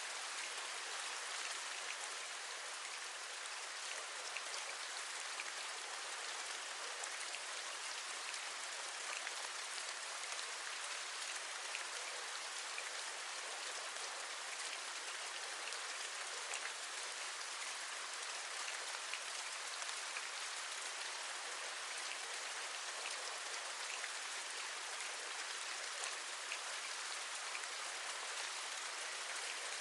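Steady rain: an even hiss with many small, scattered drop ticks, keeping the same level throughout.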